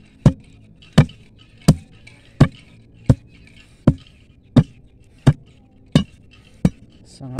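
Ribbed steel digging bar (a rebar crowbar) being driven into hard, stony soil beside a tree stump: about ten sharp strikes at an even pace, a little faster than one a second. The ground is very hard.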